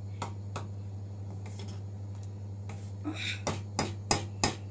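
Steel spoon clinking against a stainless-steel pan while stirring a thick ragda: a few scattered sharp clicks, then a quicker cluster of louder ones near the end, over a steady low hum.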